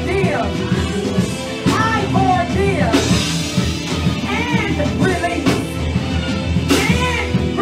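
Live gospel praise-and-worship music: a woman singing lead into a microphone, backed by keyboard and drums with regular cymbal or drum hits.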